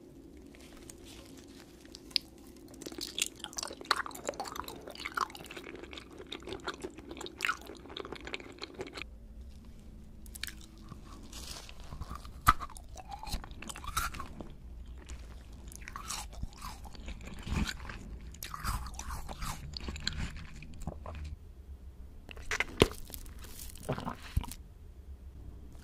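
Close-miked eating: a run of sharp crunching bites and chewing on jelly, a coated ice cream bar and a pink candy, with wet mouth sounds between the bites. It comes in separate edited sections, one per food.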